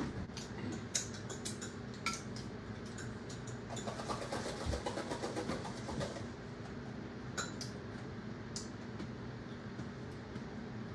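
Scattered light clinks and clicks of dishes and utensils being handled, over a steady low background hum.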